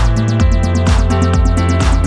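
Electronic background music with a steady beat over a deep, sustained bass.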